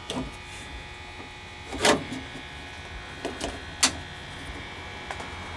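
A few sharp plastic clicks and knocks as a VW air-cooled engine's distributor cap and spark plug wires are handled, the loudest about two seconds in, over a steady electrical hum.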